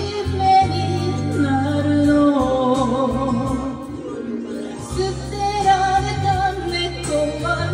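A woman singing a song into a karaoke microphone over a backing track, her voice amplified through the room's speaker. She holds long, bending notes over a steady bass line.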